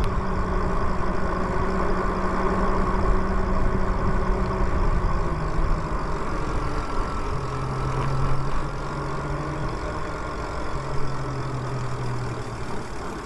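Riding noise from a Lyric Graffiti e-bike under way: wind rushing over the microphone with road noise, and a low hum that drops in pitch a few times.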